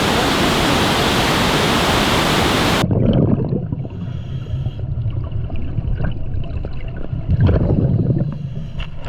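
Steady roar of a waterfall, cut off suddenly about three seconds in, giving way to a muffled low rumble with scattered small clicks, as heard with the microphone underwater in the plunge pool.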